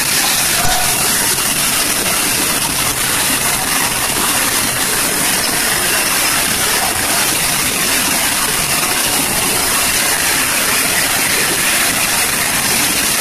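Automatic dishwasher running, with water spraying steadily inside the tub.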